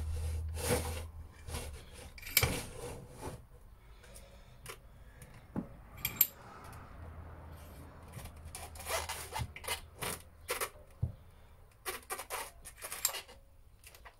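Metal parts and a small bench vise being handled while a bushing is pressed into the lower eye of a motorcycle rear shock absorber: scattered sharp clicks and light knocks with rubbing and scraping between them.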